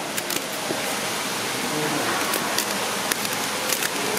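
A 3x3 puzzle cube faced with LEGO-style bricks being turned rapidly during a solve: a steady plastic clatter with many quick clicks as the layers snap round.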